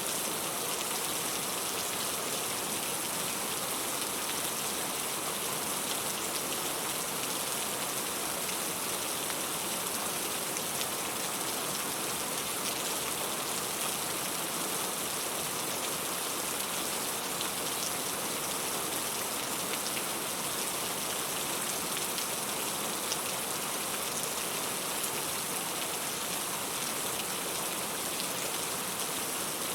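Steady rain falling on a surface, an even hiss dense with fine raindrop ticks.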